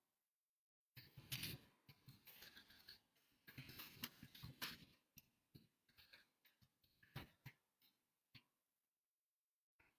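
Faint, irregular clicking of keys being typed on a computer keyboard.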